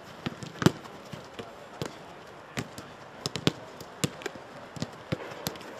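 Footballs being kicked in a quick passing drill on a grass pitch: a fast, irregular run of sharp thuds, several a second.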